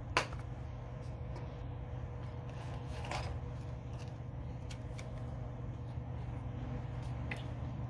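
Paper insert cards and plastic tackle packaging being handled: a few short rustles and clicks over a steady low hum.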